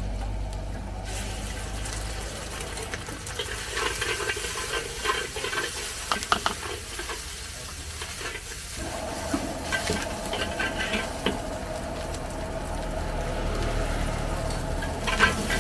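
Stir-frying in a large wok: a metal spatula scraping and clanking against the pan in quick irregular strokes, over sizzling and a steady low rush from the gas burner.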